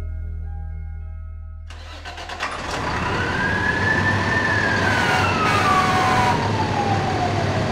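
Soft ambient music ends about two seconds in, giving way to a loud rush of engine noise. Over the noise a siren rises in pitch and then slowly winds down, as a mechanical fire-truck siren does.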